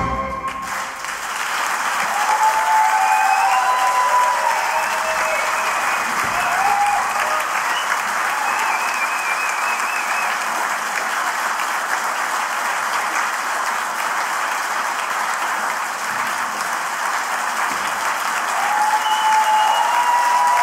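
The orchestra's final note cuts off right at the start, then a concert audience applauds steadily. A few voices call out or whoop in the first seconds and again near the end.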